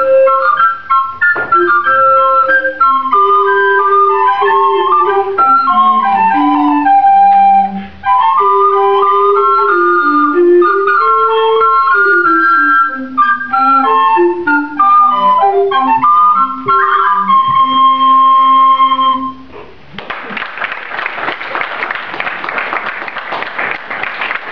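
Recorder consort, with a small recorder and a tall wooden bass recorder, playing a melodic early-music piece: a high line over a lower part. It ends on a held chord about nineteen seconds in. Audience applause follows near the end.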